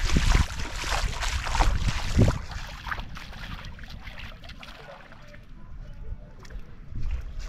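Small waves washing on a sandy shore, mixed with wind buffeting the microphone. The wash is loudest for the first couple of seconds, then eases off.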